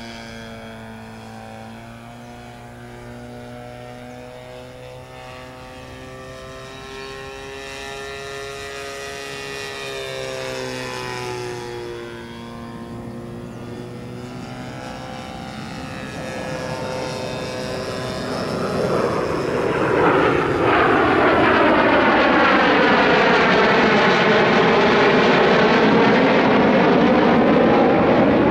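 The DLE20 20cc single-cylinder two-stroke petrol engine of a quarter-scale radio-controlled Yak 54 in flight, its note rising and falling in pitch as the plane manoeuvres. Faint at first, it grows louder over the second half and runs loud and close from about twenty seconds in.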